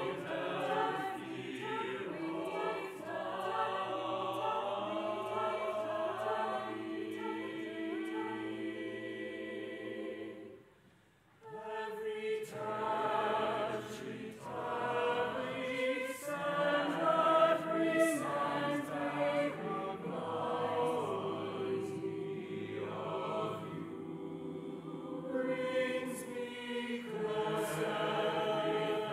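Mixed choir of men and women singing, with a full stop of about a second roughly ten seconds in before the voices come back in together.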